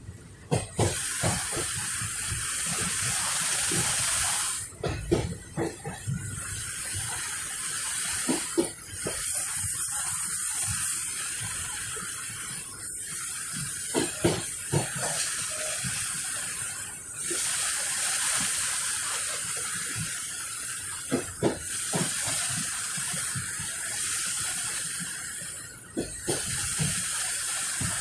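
Passenger train running, heard through an open carriage window: a steady rushing hiss of air and wheels with irregular low clacks from the track. The rush dips briefly a few times.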